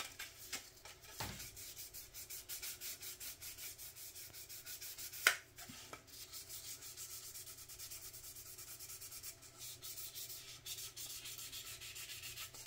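Sandpaper rubbed back and forth over the plastic body half of a 1/25 scale model car, in quick even strokes of about four a second, smoothing the surface before the primer coat. A single sharp tap comes about five seconds in.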